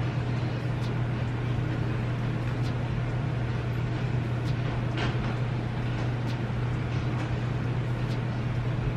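Steady low hum with a soft hiss over it, and a few faint ticks scattered through.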